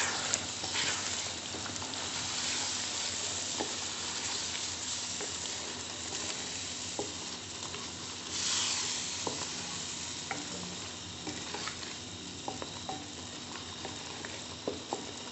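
Mutton gravy sizzling in a metal pan over high heat while a wooden spoon stirs in freshly added yogurt, with steady frying hiss and scattered light scrapes and taps of the spoon against the pan.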